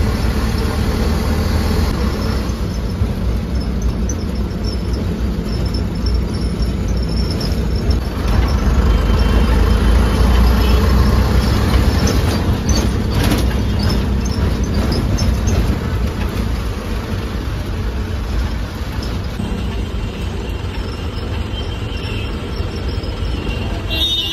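City bus engine running under way, heard from inside the cabin beside the driver, with a low rumble and road noise. It grows louder about eight seconds in, with a few sharp knocks just past the middle, then eases back.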